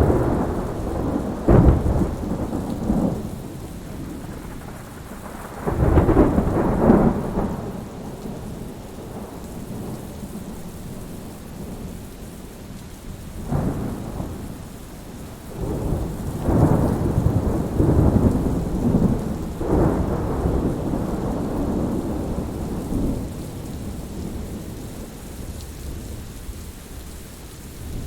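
Thunderstorm: rolls of thunder over steady rain. The loudest rumbles come at the start and about six seconds in, with a briefer one about halfway and a longer rolling stretch after that, all over the continuous hiss of rain.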